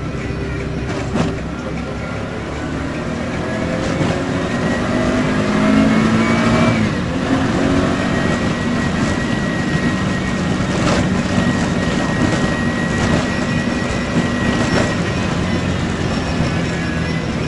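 Mototaxi's small motorcycle engine accelerating, its pitch rising for a few seconds and dropping at a gear change about seven seconds in, then running steadily at speed over road noise. A few brief knocks come through along the way.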